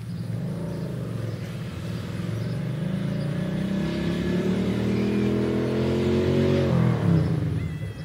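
A motor vehicle's engine pulling away and speeding up, its pitch rising steadily, then dropping and fading away about seven seconds in.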